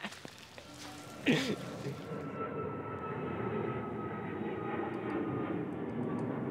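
Airplane passing overhead: a steady drone with a faint whine that slowly falls in pitch. It follows a brief loud burst of sound just over a second in.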